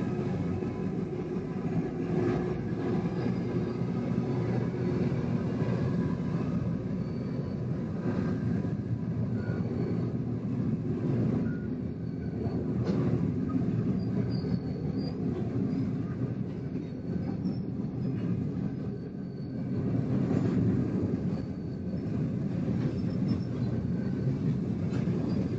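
Train running on the track: a steady rumble with faint high wheel squeal, rising and falling a little in loudness.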